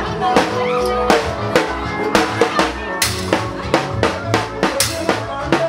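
Party music with a steady drum-kit beat, kick and snare hits over a bassline and sustained melodic notes.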